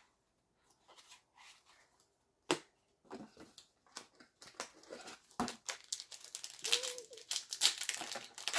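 Trading cards being handled on a playmat, with a sharp tap about two and a half seconds in as a card is set down, then dense crinkling and tearing of a booster pack's foil wrapper from about six and a half seconds on.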